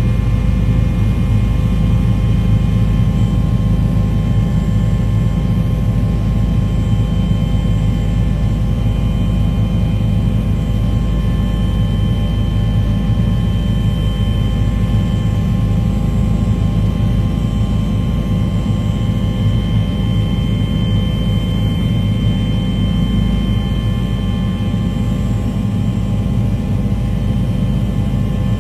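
Aircraft in flight: a steady, unchanging low engine rumble with several constant whining tones above it.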